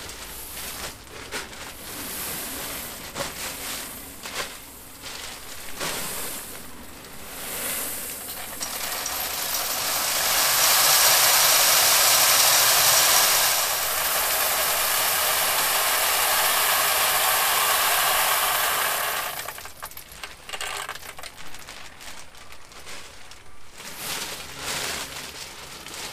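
Plastic biofilter media poured from a plastic bag into a pond filter canister: the bag rustles and pieces clatter in, then for about ten seconds, from around nine seconds in, a steady rushing pour, before it falls back to scattered rattling.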